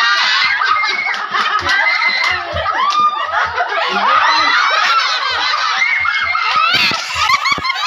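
A crowd of children and adults laughing, shrieking and shouting all at once, loud and without a break. A few sharp knocks come near the end.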